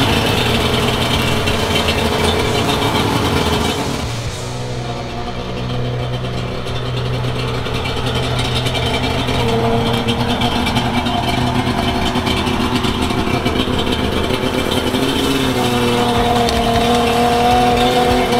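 Suzuki Jimny SJ10's two-stroke three-cylinder engine running under way, its revs rising and falling a few times as it is driven.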